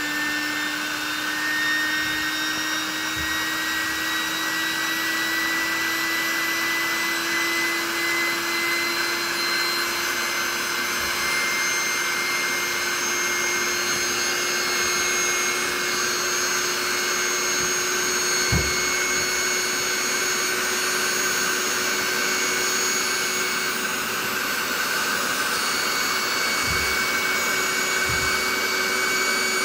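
Handheld electric air pump running steadily as it blows air into an inflatable vinyl paddling pool, its motor hum rising slowly in pitch. A single thump about two-thirds of the way through.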